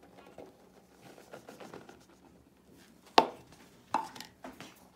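Flour pouring from a plastic container into a plastic mixing bowl: a soft, faint rustle, then a sharp knock of plastic on plastic about three seconds in and a few lighter knocks after it.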